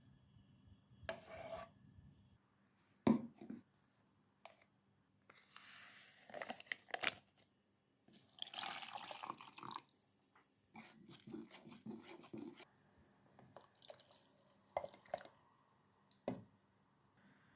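Kitchen work sounds: short bursts of pouring or running water, with scattered clinks and knocks of dishes and utensils.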